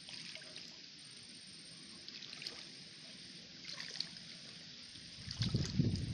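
A hand scooping into wet mud and shallow water at a hole, giving irregular sloshing and squelching that starts about five seconds in and is the loudest part. Before that only a faint watery hiss with a few small clicks.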